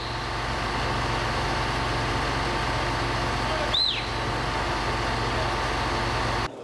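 Heavy vehicle engine idling steadily with an even low rumble, and one short high chirp that rises and falls about four seconds in. The engine sound cuts off suddenly near the end.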